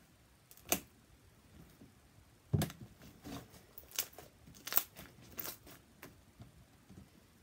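Sticky homemade glue slime, made sticky with body wash, being stretched, folded and squished by hand: about half a dozen short wet crackles and snaps as it pulls apart and is pressed together.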